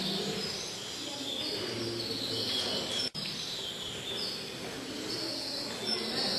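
Forest ambience with repeated high-pitched chirping calls from birds and insects. The sound breaks off for an instant about three seconds in.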